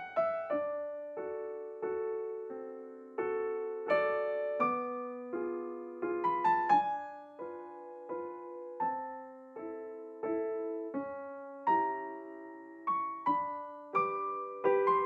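Slow background piano music: single notes and chords struck about once a second, each left to fade.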